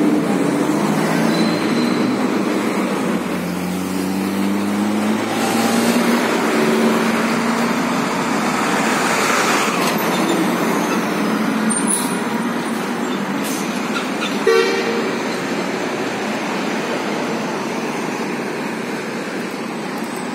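Street traffic at a busy intersection: vehicle engines pulling away with a rising pitch in the first few seconds, then a box truck driving past close by. About two-thirds of the way through comes a short horn toot.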